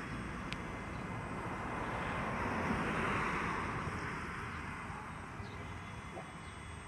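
A car driving past on the road. Its tyre and road noise swells to a peak about three seconds in, then fades away.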